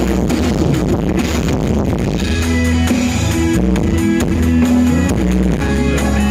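Loud music with heavy bass and a steady beat, played through a sound system with ten bass speakers.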